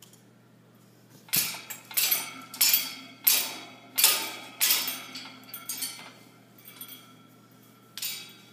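Cockatoo playing in its metal wire cage, making sharp metallic clanks with a short ring after each. About six loud ones come in quick succession, then a few softer ones trail off, and one more comes near the end.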